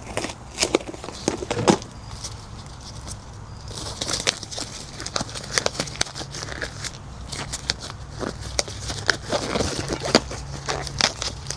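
Irregular clicks, knocks and crackling handling noises, with a steady hiss joining about four seconds in.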